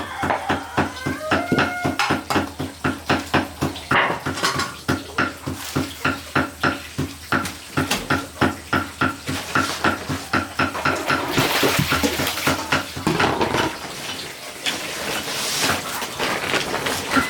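Rapid, even chopping with a knife on a cutting board, about three to four strokes a second. The strokes break off for a few seconds near the end.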